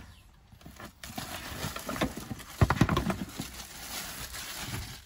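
Plastic wrapping crinkling and a cardboard box rustling as a handheld car vacuum cleaner is lifted out, with irregular handling clicks and knocks. A sharp knock comes about halfway through.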